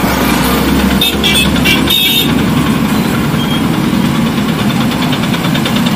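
Busy road traffic of motorcycles and cars in a jam, with several short horn honks between about one and two seconds in.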